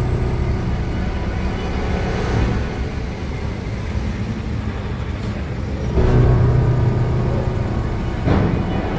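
Steady low engine rumble with a droning hum, growing louder about six seconds in.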